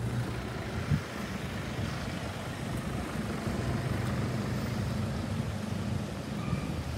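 Isuzu ambulance's diesel engine running as the vehicle drives off, a steady low hum, with a single short thump about a second in.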